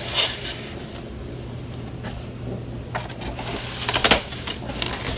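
A water heater being pushed and slid out of its cardboard box: scraping and rustling with several knocks, the loudest about four seconds in, over a steady low hum.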